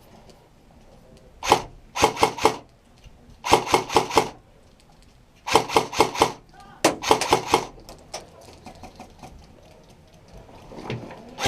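Airsoft gun firing: one shot, then four short bursts of three to five rapid cracks each, about a second and a half apart.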